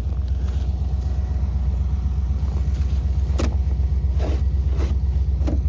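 A truck engine idling steadily in the background, a low even rumble, with a few sharp clicks of handling over it about three and a half, four and five and a half seconds in.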